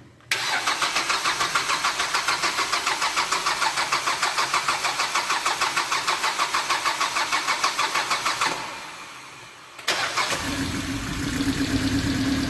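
Freshly rebuilt Hyundai G4NA 2.0-litre four-cylinder engine on its first start: the starter cranks it in an even rhythm for about eight seconds, stops briefly, then the engine fires and settles into a steady fast idle.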